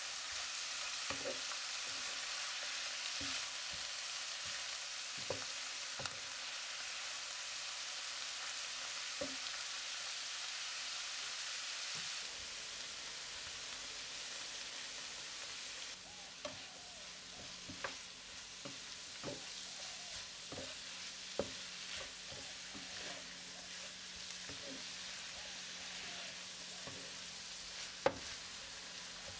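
Shredded cabbage, carrot and green chilies sizzling in oil in a non-stick pan, stirred with a wooden spatula that knocks against the pan now and then, more often in the second half.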